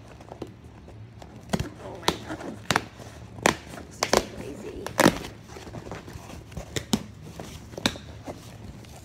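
A cardboard shipping box being pried and torn open by hand: irregular snaps, crackles and rips of the stiff cardboard flaps, the sharpest ones clustered between about one and a half and five seconds in.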